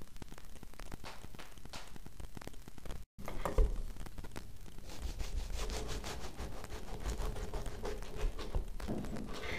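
Rustling and crackling of a crusty wholemeal spelt loaf and its slices being handled on a wooden cutting board, with a single thump about three and a half seconds in.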